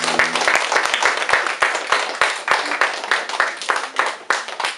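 Small audience clapping, with dense, irregular claps. The band's last guitar chord rings out under them and stops about half a second in.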